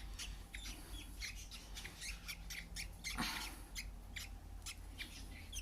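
Baby budgerigar chicks giving many short, high chirps and squawks in quick succession, with a brief rustle about three seconds in.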